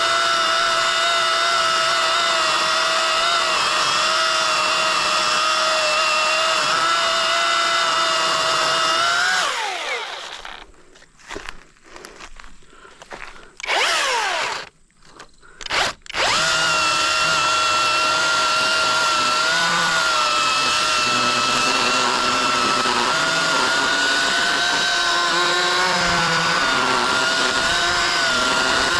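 Youxian battery-powered chainsaw's electric motor whining at speed through the back cut of a large tree trunk. About nine seconds in, the motor winds down and stops; after a short pause and a brief squeeze of the trigger, it runs up again and keeps cutting.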